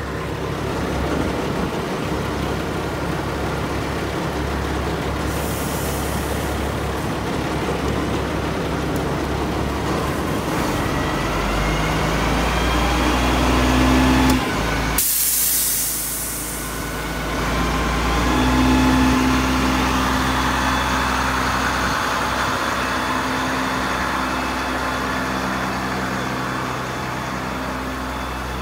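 International DT-466 turbo diesel running the Hale fire pump, its pitch climbing about ten seconds in as the pump-panel throttle is opened, then holding at the higher speed. About halfway through there is a sudden loud hiss lasting under a second.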